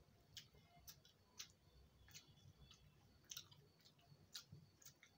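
Faint eating sounds of rice and curry being eaten by hand: soft, scattered clicks and smacks of chewing, roughly one or two a second.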